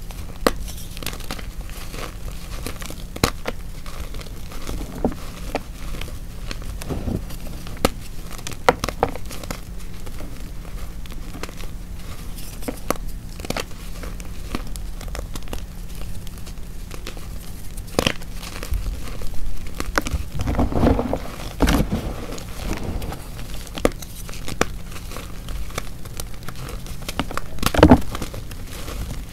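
Dried hearts of Chalkness gym chalk, made from only chalk and water, being crushed and crumbled: a steady run of dry crackles and crunches, thickest about twenty seconds in and again near the end.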